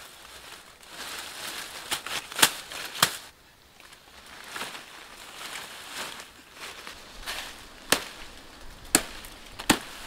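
Leafy undergrowth and dry twigs rustling as they are handled, with about six sharp snaps scattered through, the loudest near three seconds in and just before the end.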